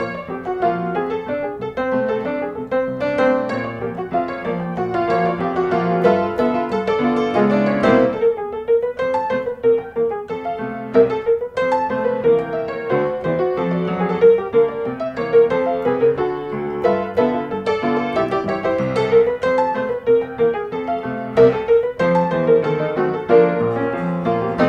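Background piano music, a continuous run of notes with no break.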